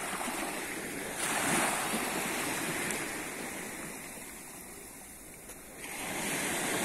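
Small waves washing up the wet sand at the shoreline and draining back, a hiss of surf and foam. One swash surges in about a second in and fades away, then the next wave rushes in near the end.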